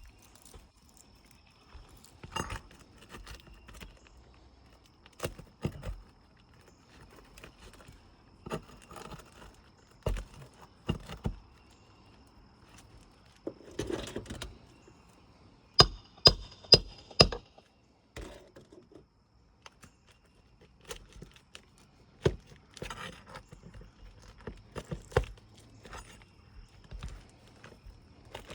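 Scattered scraping and knocking of a pry bar working an asphalt shingle's nails and adhesive strip loose, with four sharp metallic taps in quick succession about sixteen seconds in.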